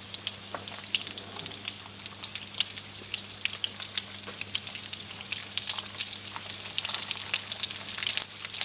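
Nut-crusted fish fillets sizzling and crackling in hot oil in a frying pan, a dense patter of small pops over a steady hiss. It is the sound of a pan hot enough to seal the egg-and-nut coating straight away. The sizzle picks up near the end as a second fillet goes in.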